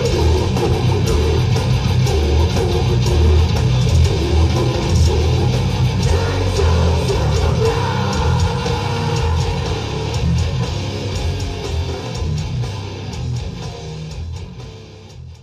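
Death metal band playing live, with heavily distorted electric guitars, bass and pounding drums. The music fades out gradually over the last several seconds.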